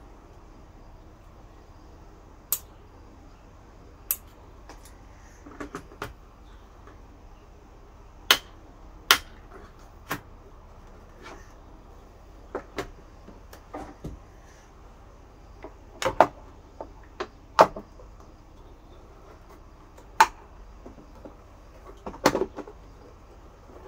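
Sharp plastic clicks and knocks, more than a dozen at irregular intervals, as circuit breakers and the front cover of a small plastic consumer unit are handled and snapped into place.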